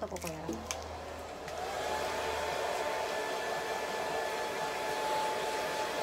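Handheld hair dryer switching on about a second and a half in: its motor whine glides up and settles at a steady pitch over a steady rush of blown air.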